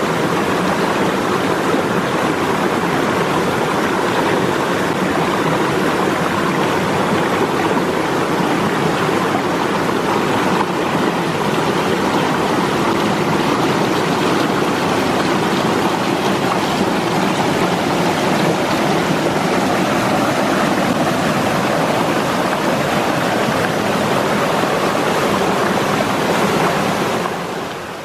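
Mountain stream rushing over rocks and small cascades close by: a loud, steady, even rush of water that gets quieter near the end.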